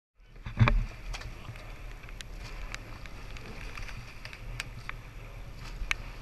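Eight-oared rowing shell underway: short sharp knocks from the oars working in their gates, with blade splashes and wind buffeting the microphone. The sound cuts in abruptly, and the loudest knock comes about half a second in.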